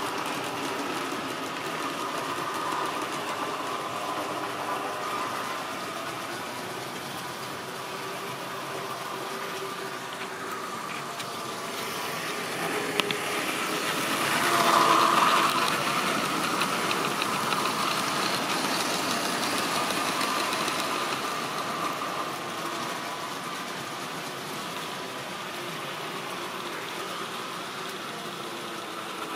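Model railway trains running on the track: a steady electric motor whirr and wheel rumble that swells to its loudest about halfway through as a blue diesel locomotive passes close by.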